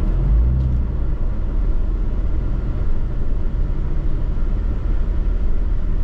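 Vehicle engine running at low speed as the vehicle backs up slowly, heard from inside the cab: a steady low rumble.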